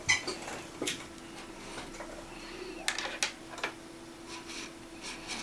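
Light clicks and taps of small repair tools and phone parts being handled on a work surface, a few scattered and a quick cluster about three seconds in, over a faint steady hum.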